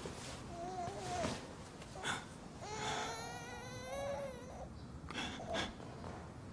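An infant crying: a short wail, then a longer cry of about two seconds that rises and falls in pitch.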